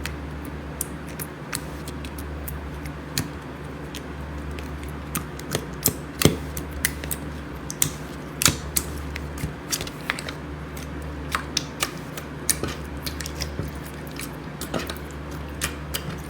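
Slime being squeezed and pressed close to the microphone, giving irregular sharp crackling clicks and pops, several a second, over a steady low hum.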